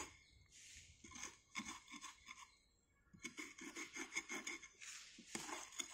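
Gritty scraping and rubbing in foundry moulding sand, a run of short irregular strokes with a brief pause near the middle.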